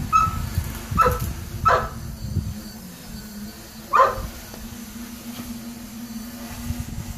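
A dog barks four times in short, sharp barks, the last about four seconds in the loudest. Underneath runs a steady low hum, the SK450 quadcopter's motors in flight, with wind rumbling on the microphone.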